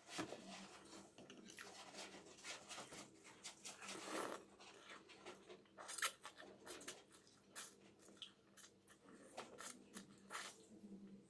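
Close, faint eating sounds of a person chewing and slurping forkfuls of steamed noodles with melted cheese: irregular wet mouth clicks and smacks, with louder slurps about 4 and 6 seconds in.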